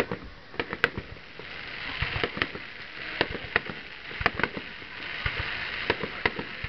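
Aerial fireworks shells bursting: a dozen or so sharp bangs and pops at irregular intervals.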